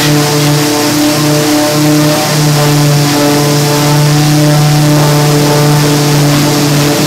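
Steady, loud machine drone with a low hum, dipping briefly a few times.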